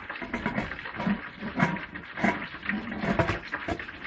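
Stainless-steel pressure cooker lid being closed and locked by its handle: an irregular run of metal scrapes and clanks, with water moving in the pot.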